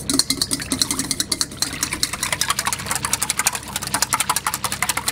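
Wire whisk beating eggs in a stainless steel bowl, its tines clicking rapidly and rhythmically against the metal.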